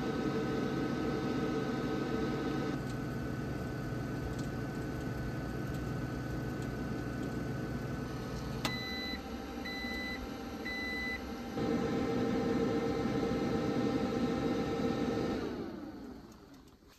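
Microwave oven running with a steady hum, then clicking off about halfway through and beeping three times to signal that heating is done. A fan-like hum keeps running afterwards and fades out near the end.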